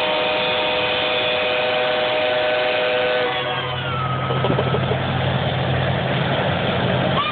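Loram RG400 rail grinding train running: a loud steady rush of machinery noise. A set of high steady whining tones cuts out about three seconds in, and a low steady hum carries on underneath.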